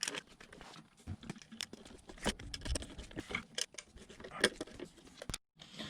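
Scattered, irregular small clicks and taps of hands and tools working with wire, as fire alarm horn wiring is being connected.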